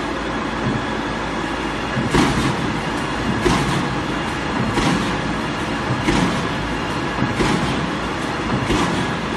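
Green veneer peeling line with a spindleless veneer lathe running steadily. A short, noisy surge comes back at an even beat about every 1.3 seconds.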